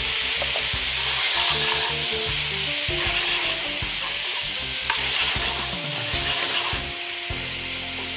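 Sliced vegetables sizzling in a hot sauté pan just deglazed with white wine, the liquid hissing as it boils off in steam while the vegetables are stirred through it. A single knock about five seconds in.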